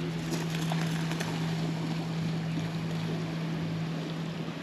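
Wind on the microphone and gentle surf at a shallow beach, under a steady low hum that holds one pitch. A few faint clicks come in the first second or so.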